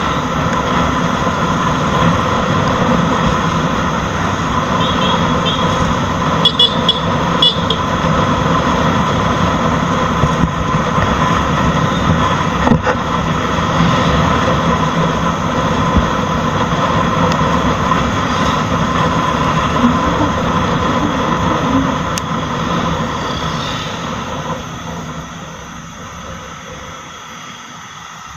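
Motorcycle on the move: engine running under a steady rush of wind and road noise at the microphone. It eases off and quietens over the last few seconds as the bike slows.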